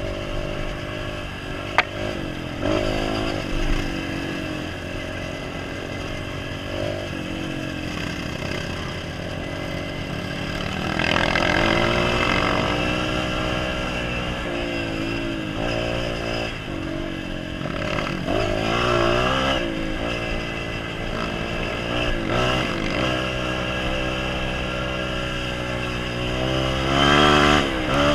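Honda CRF230F dirt bike's single-cylinder four-stroke engine under way, its pitch rising and falling again and again as the throttle is worked and gears change, with harder acceleration about eleven seconds in and near the end. A single sharp click about two seconds in.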